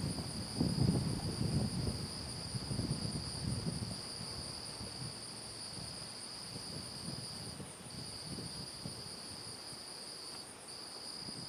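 Steady, high-pitched insect chorus from the surrounding summer grass, two unbroken buzzing tones, the lower one dropping out briefly twice near the end. A faint low rumble sits under it in the first few seconds.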